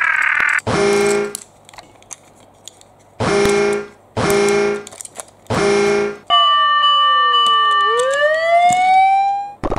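Toy fire engine's electronic sound effects: four short horn-like honks, then a siren wail that falls and climbs again, with another honk right at the end.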